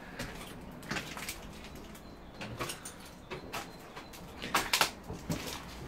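A few scattered soft knocks and scuffs, mostly light, with a small cluster near the end: footsteps and movement over a floor littered with debris and old newspaper.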